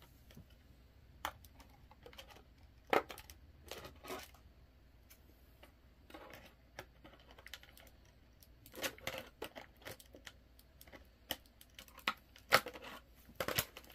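Irregular light clicks and taps of small plastic toy parts being handled. They are scattered through, with busier clusters about three seconds in, about nine seconds in and near the end.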